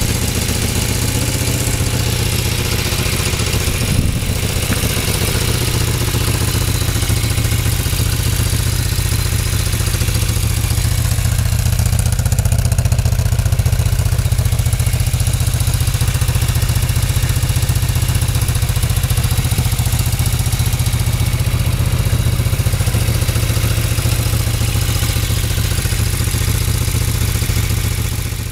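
1981 Moto Guzzi V50 III's air-cooled transverse V-twin idling steadily, with a single brief click about four seconds in.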